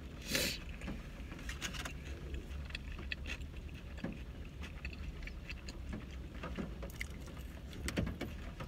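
Eating sounds inside a car: chewing and small mouth clicks while eating a french fry, with crinkles of a paper burger wrapper, the loudest about half a second in, over a steady low hum of the car cabin.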